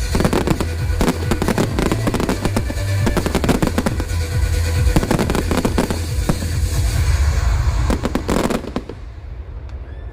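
Fireworks finale: rapid, dense volleys of bangs and crackling over loud music, stopping abruptly about nine seconds in.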